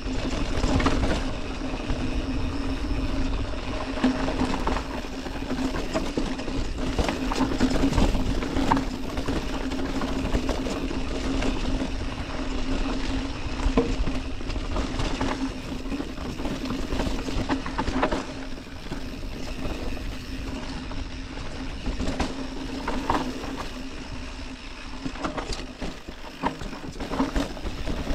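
Orbea Occam TR full-suspension mountain bike ridden fast down a dirt forest trail: tyres rolling over dirt and roots with frequent knocks and rattles from bumps, wind rumble on the camera microphone, and a steady hum underneath.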